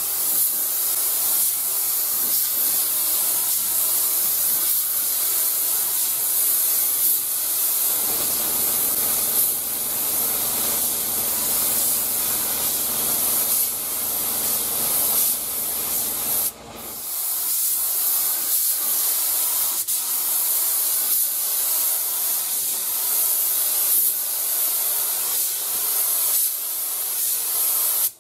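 Vevor HVLP gravity-feed spray gun spraying lacquer primer surfacer: a steady air hiss, broken once briefly about two-thirds of the way through when the trigger is let off.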